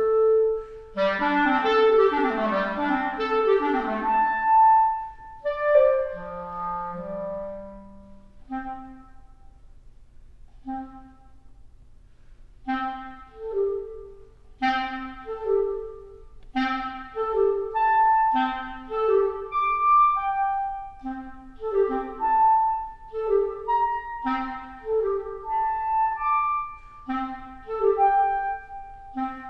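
Solo clarinet playing unaccompanied: fast, loud runs of notes for the first few seconds, then a quieter stretch of a few short separated notes. About halfway through, this settles into a repeating figure of short detached notes, jumping between low and high, roughly one per second.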